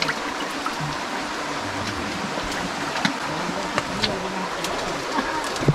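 Steady rush of a flowing stream, with a few sharp clicks and knocks scattered through it, the loudest near the end.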